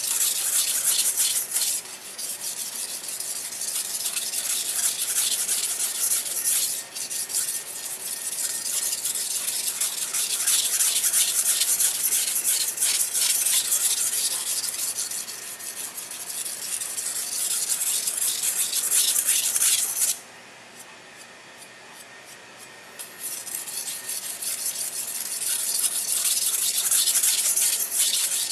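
Steel gyuto blade stroked back and forth on a 500 grit whetstone, a continuous gritty rasping in quick repeated strokes. The rasping dips briefly twice and stops for about three seconds roughly two-thirds of the way through. This is the sharpening of the first side, done to raise a burr along the whole edge.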